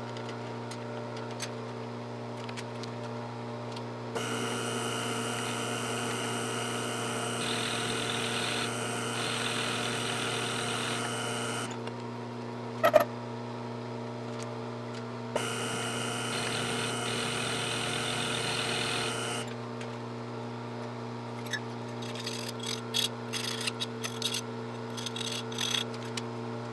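Milling machine running with a steady motor hum, with two stretches of a louder, higher whine, about seven and four seconds long, and a single sharp click between them. A few light ticks come near the end.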